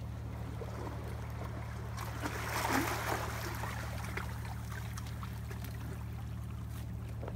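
Steady low hum of an idling boat engine over water trickling and lapping among shore rocks, with a short louder rush of water about two and a half seconds in.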